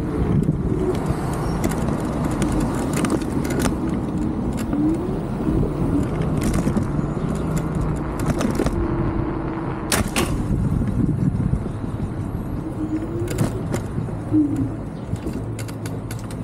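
Wind rushing over the microphone and road rumble while riding an Onvo RX7 electric scooter, steady throughout with a few faint short whines rising and falling. The noise eases a little near the end.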